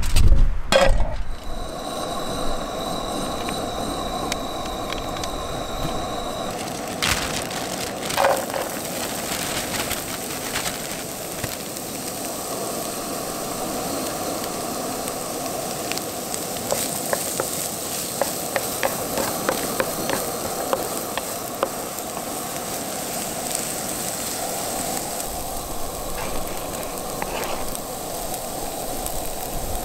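Diced onion and garlic sizzling in oil in a nonstick frying pan on a portable gas burner, with a steady hiss, while a wooden spatula scrapes and taps the pan in short scattered clicks.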